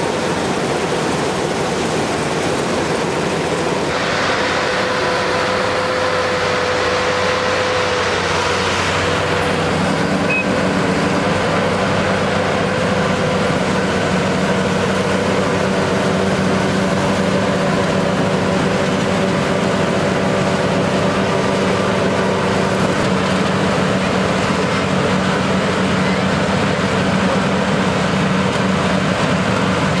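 LOVOL RG108 combine harvester running steadily as it cuts and threshes rice, a loud, even machine hum with several constant tones. The sound shifts about four seconds in, and its low hum changes pitch about ten seconds in.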